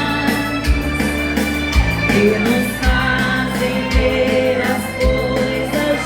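A live dance band playing a waltz with a singer: a sung melody over sustained chords, with a low bass beat about once a second.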